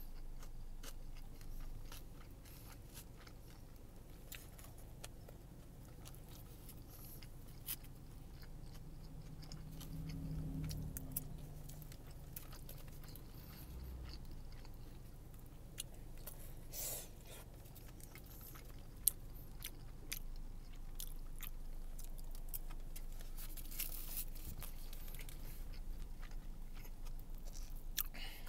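Close-up chewing and biting of a mouthful of kalua pork, rice and cabbage, with scattered light clicks from a plastic fork in a foam takeout box.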